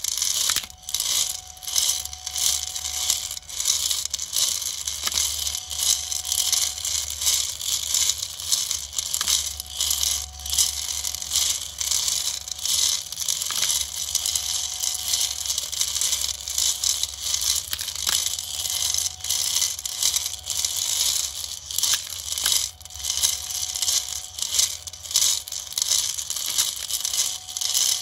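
Steel M3 hex nuts clattering and tumbling continuously inside a slowly turning 3D-printed plastic hopper drum, a dense rattle of many small clicks. A low hum and a faint steady whine from the NEMA 17 stepper motor that turns the drum run underneath.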